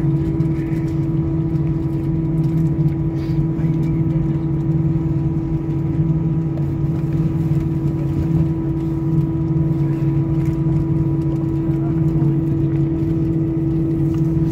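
Steady drone of a jet airliner heard from inside the passenger cabin while it taxis: an even rumble with two constant humming tones, one low and one a little higher, that does not change.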